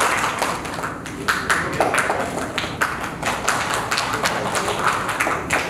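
Scattered applause from a small audience, individual claps standing out irregularly.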